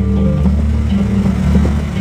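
Instrumental music with low held bass notes and plucked guitar.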